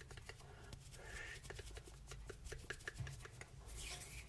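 Hands moving and fingers rubbing close to the microphone, with many small quick clicks and soft rustling.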